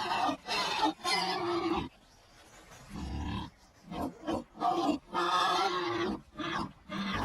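Pigs grunting and squealing in a string of harsh calls. Two are long, near the start and about five seconds in; the others are short, including a low grunt about three seconds in, with a brief pause just before it.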